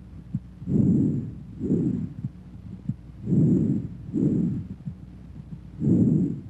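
Bronchovesicular breath sounds heard over the chest through a stethoscope, of intermediate pitch: about three breaths, each an inspiration and an expiration of about equal length with a short gap between them.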